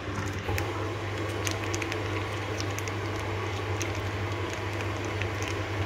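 Plastic sauce pouch crinkling, with soft squelches as thick BBQ sauce is squeezed out of it onto ribs. Underneath is a steady low hum.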